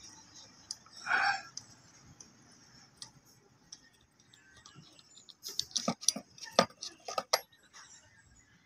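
Metallic clicks and clinks of a spark plug socket wrench being worked on a scooter's spark plug as it is loosened and drawn out of the cylinder head, a quick run of sharp clicks in the second half. A short hiss-like rustle about a second in.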